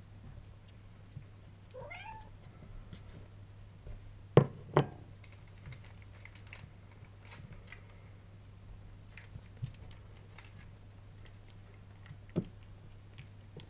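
A domestic cat meows once, a short call that rises and falls, about two seconds in. A little later come two loud sharp knocks half a second apart, then fainter single knocks, over a steady low hum.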